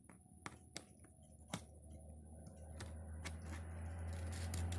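Thin metal pry tool clicking and scraping against a phone's frame as the display is pried loose: three sharp clicks in the first second and a half, with lighter ticks around them. Under it a low hum with a rushing noise grows steadily louder through the second half.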